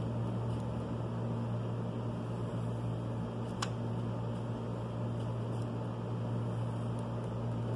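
A steady low machine hum, with one faint click about three and a half seconds in.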